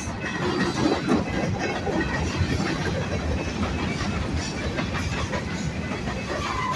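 Freight train passing close by: a steady rolling noise of steel wheels on the rails, with irregular clicks throughout.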